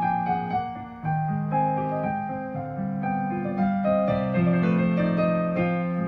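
Solo piano playing: a melody of single notes over held low notes, each note struck and then left to ring.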